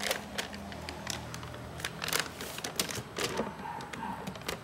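Freezer paper crinkling and crackling in irregular sharp clicks as it is peeled by hand off a log of cold process soap.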